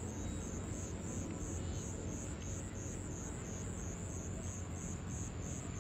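Night insects chirping in a steady, high, even pulse of about three a second, over a low steady background rumble.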